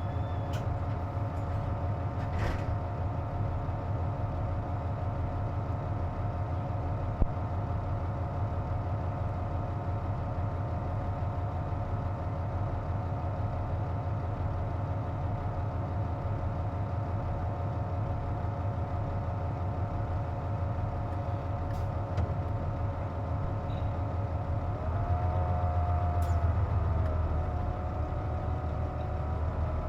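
Cabin sound of a KC-JP250NTN diesel route bus running with its air conditioning on: a low engine drone under steady whining tones, the abnormal noise this bus makes with the air conditioner running. About 25 seconds in, the engine picks up briefly and the whine bends in pitch.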